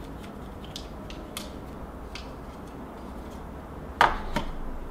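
Faint scattered clicks and taps of desktop computer parts being handled, then two sharper knocks close together about four seconds in.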